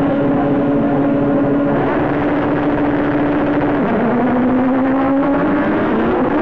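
Several 1600 cc autocross buggies hold their engines at high revs on the start line. About four seconds in they launch: the engine note dips sharply, then climbs again as they pull away.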